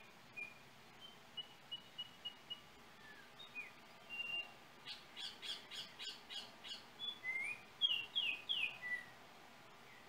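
Yellow oriole singing. It gives a run of short clear whistled notes, then a quick series of harsher repeated notes about halfway through, and ends with loud down-slurred whistles.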